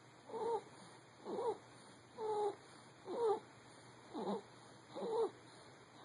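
A sleeping baby's noisy breathing: a short, squeaky, pitched noise with each breath, six in a row at about one a second.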